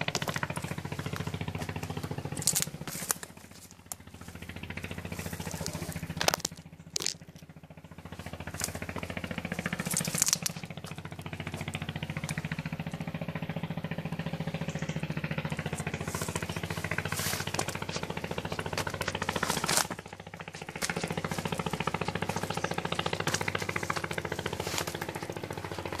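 A small engine running with a rapid pulsing beat. It dies away briefly about four, seven and twenty seconds in, with a few short hissing scrapes.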